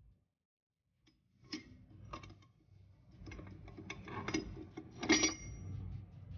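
Steel parts clicking and clinking as a sliding clutch is worked by hand onto the splined input shaft of a Meritor 14X power divider. The clicks start about a second and a half in and grow busier, with one louder, briefly ringing metal clink about five seconds in.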